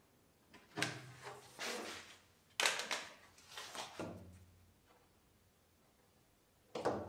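Handling noise from a tape-wrapped extruded polystyrene foam cockpit mold being pressed and settled onto a wooden kayak deck over dots of hot glue: scraping and rubbing with light knocks. There are three short bouts, and the middle one starts sharply and is the loudest.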